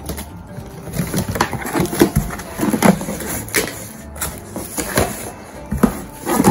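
Cardboard shipping box being opened by hand: tape and flaps scraping, rustling and crackling in an irregular run of short, sharp sounds.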